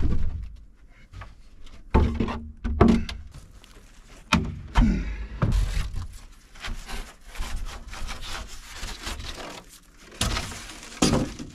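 Wooden plank door knocking and thumping as it is pulled open. Then a rigid foam insulation board rubs and scrapes as it is shifted and lifted aside, with a couple more thumps near the end.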